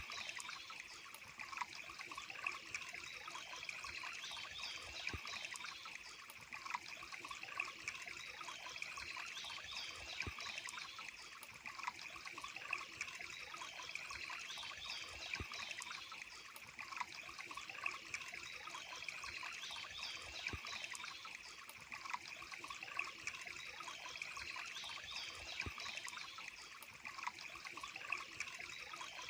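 Running water trickling and splashing steadily, as from a small stream or waterfall. Faint high chirps recur every couple of seconds above it.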